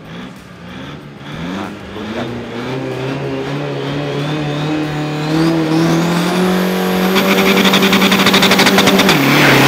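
Drag-racing car's engine on the start line: short rev blips, then revs climbing steadily and held high with a rapid crackle. It launches near the end with a sudden drop in pitch.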